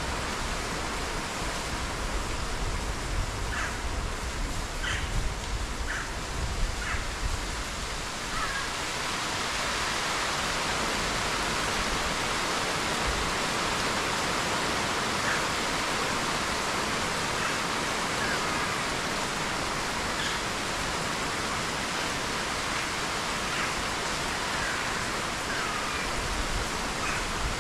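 Steady rain falling on tree leaves, an even hiss, with a low rumble under it for the first eight seconds or so. A few brief high-pitched sounds break through now and then.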